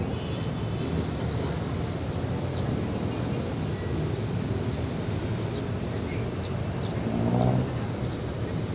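Steady low rumble of city traffic noise, with a louder, rising engine-like tone swelling briefly about seven seconds in.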